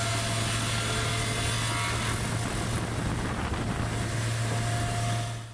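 Hydraulic sawmill's four-cylinder diesel engine running steadily with a low hum, under the dense hiss of the saw working oak; the high hiss eases a little over two seconds in.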